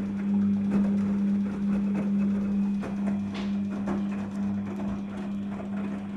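Daewoo DWD-FT1013 front-loading washing machine running, a steady low hum with irregular light clicks and knocks over it.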